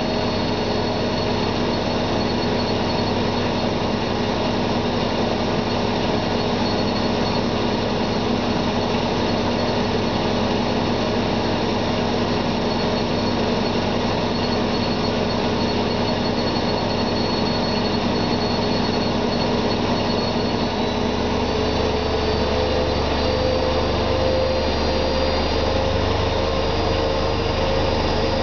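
Zanussi ZWF 1621 W washing machine on a high-speed spin: a steady motor whine over the hum of the spinning drum. About 21 seconds in, the low hum grows stronger and one of the tones shifts slightly higher.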